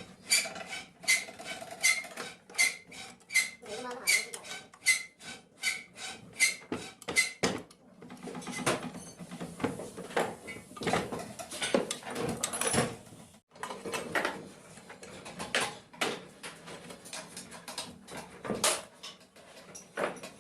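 Rapid metal-on-metal tapping, about two to three strikes a second, each with a brief ring, then a stretch of scraping and clattering with scattered knocks: hand tools working small metal sewing-machine parts.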